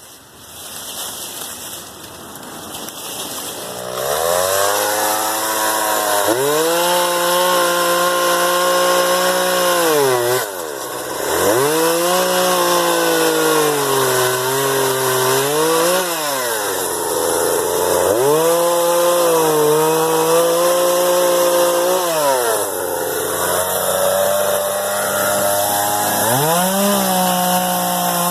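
Chainsaw cutting wood, coming in about four seconds in. Its engine note repeatedly sags as the chain bites into the cut and climbs back as it eases off, over several cuts.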